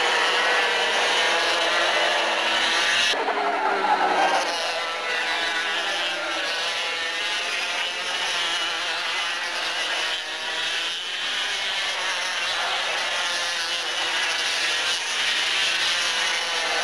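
Several Parilla two-stroke racing kart engines running at high revs as the karts lap the track. The pitch rises and falls as they accelerate and lift through the corners, and the sound changes abruptly about three seconds in.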